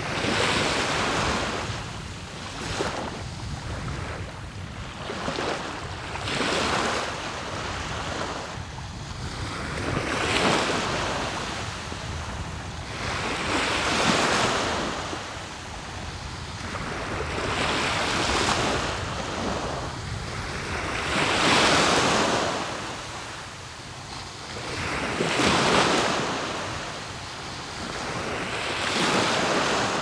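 Sea waves breaking on the shore, each wave a swelling rush of surf that rises and falls away every three to four seconds, over a steady low rumble.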